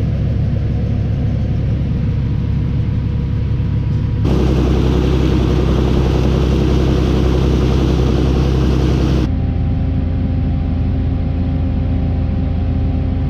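Tractor engine running steadily while pulling a grain cart. A louder rushing noise joins in about four seconds in and cuts off suddenly about five seconds later, after which the engine goes on at a slightly different pitch.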